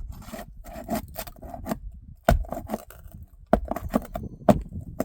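Roofing nails being worked out from under old asphalt shingles: scraping and rasping, with three sharp knocks at about two, three and a half, and four and a half seconds in.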